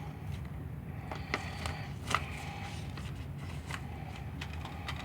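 Blu-ray disc cases and packaging being handled: a few faint clicks and rustles over a low steady hum.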